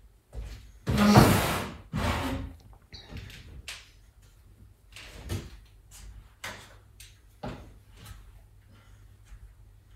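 Knocks and thuds: two loud bumps about one and two seconds in, each with a short rumble, then a string of lighter knocks and clicks.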